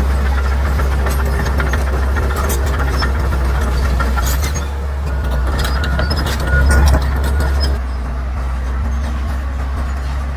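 Bulldozer's diesel engine running steadily with a deep drone, overlaid by scattered sharp cracks and clanks; it swells briefly louder about two-thirds of the way through.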